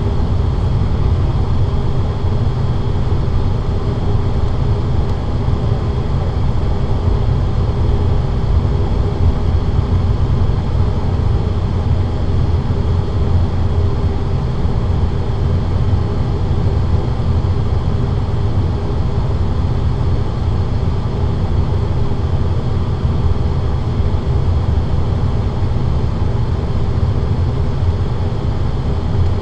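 ATR 42-600's Pratt & Whitney PW127M turboprop engines and six-blade propellers, heard from inside the cabin, running steadily at low power while the aircraft holds still on the runway. A deep, unchanging drone with a faint steady high whine, and no spool-up.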